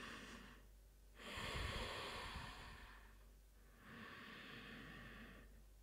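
A woman's slow, deep breathing while she holds a yoga pose: quiet breaths of about two seconds each, with short pauses between them, the one about a second in the loudest.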